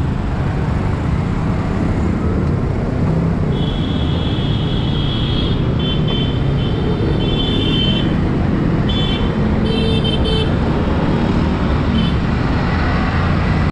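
Motorcycle riding through city traffic: a steady low rumble of engine and road, with several high-pitched vehicle horn honks, one long and then a run of short toots, from about four to ten seconds in.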